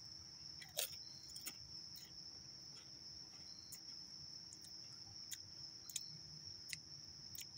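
A steady high-pitched insect chorus, with irregular crunches as a Pringles crisp is chewed.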